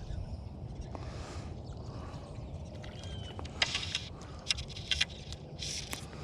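Steady low rumble of flowing stream water, with a few short, sharp crackling bursts in the second half.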